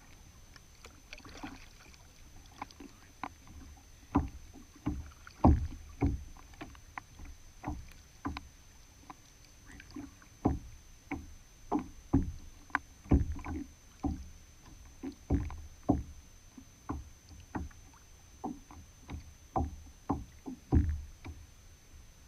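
Small waves slapping and knocking irregularly against a plastic kayak hull right beside the microphone, about one or two dull knocks a second.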